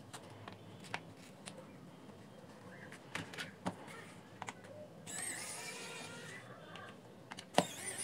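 Electric precision screwdriver whirring as it drives screws out of the speaker's back plate, in two runs of about a second and a half, the second starting just after a sharp click. Light clicks and taps of handling the speaker come before.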